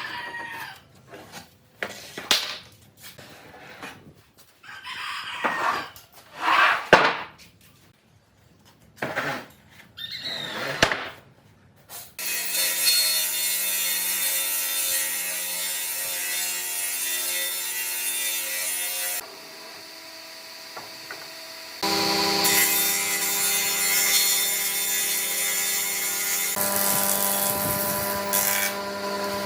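Separate strokes of a hand tool rubbing and scraping on oak, irregularly spaced, for about the first twelve seconds. Then an electric power tool starts working the wood and runs steadily. It goes quieter for a few seconds in the middle, then runs loud again.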